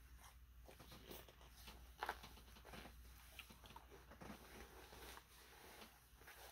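Near silence: faint room tone with a low hum and scattered small clicks and rustles, with one sharper click about two seconds in.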